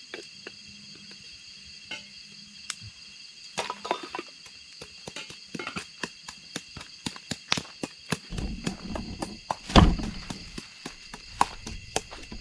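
Steady high chirring of night insects, with scattered clicks and knocks of things being handled that grow busier from about four seconds in. From about eight seconds there is a rumbling of camera handling and footsteps, with one loud thump about two seconds later.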